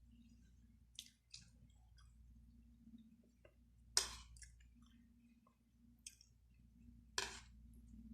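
A person eating and chewing, with about six short sharp clicks or smacks; the loudest comes about four seconds in. A low steady hum runs underneath.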